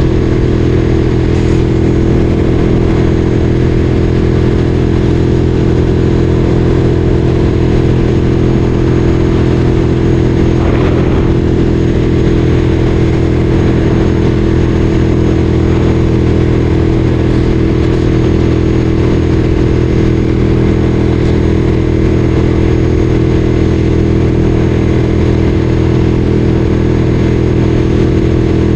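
Ducati Streetfighter 848's L-twin engine running at a steady, unchanging engine speed.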